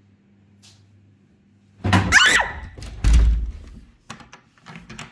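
A faint room hum, then a sudden rush of movement with a short high squeal about two seconds in. About a second later comes a heavy thump of an interior door slammed shut, then a few light knocks and rattles.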